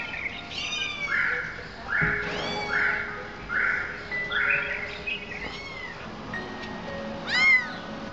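Kittens mewing repeatedly in high, rising-and-falling calls, the loudest about seven seconds in, over soft background music.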